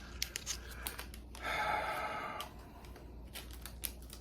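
A few light clicks and taps from handling things on the table, with a breathy sigh about a second and a half in that lasts about a second.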